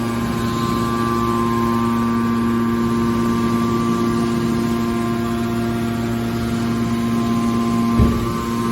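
Hydraulic pump and electric motor of a scrap metal baler running with a steady hum, with a single thump near the end.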